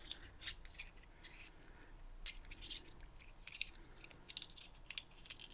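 Faint, scattered small clicks and taps of tiny lock parts and tools being handled on a bench, with a few louder ticks near the end.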